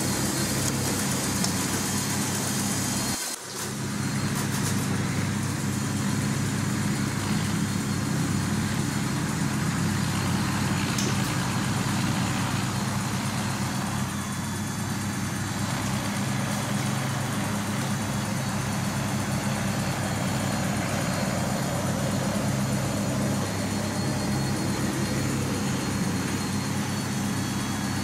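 Large Meccano model crawler tractor running under its own power: a steady mechanical whir and hum from its electric drive, gearing and tracks.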